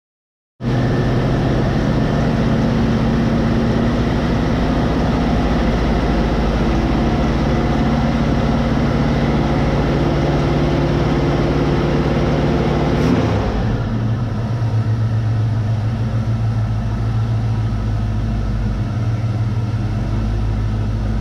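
A 1971 Pontiac Ventura's engine idling steadily on a cold start, fed by a freshly rebuilt carburetor with its choke closed. About thirteen seconds in, the running note changes and gets a little quieter.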